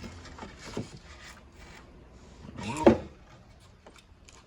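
Light knocks and rubbing of wooden window trim being handled and fitted, with one short, louder pitched sound about three seconds in.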